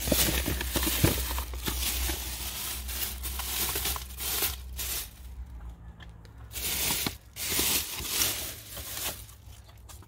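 Black plastic bags crinkling and rustling as a hand rummages through them. The rustling is continuous at first, then comes in separate bursts with short pauses.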